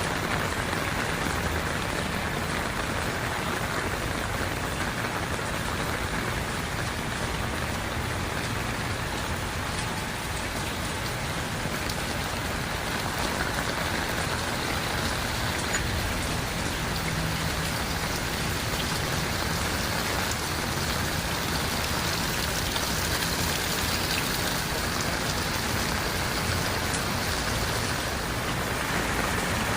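Heavy rain falling steadily, pattering on surfaces and splashing on the ground.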